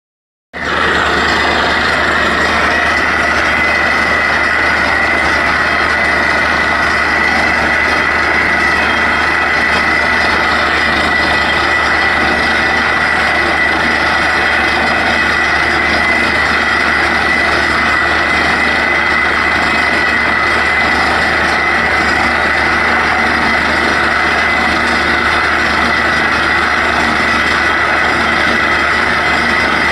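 A crop threshing machine running steadily, its drum and engine giving a constant loud drone with a steady high whine. It starts about half a second in.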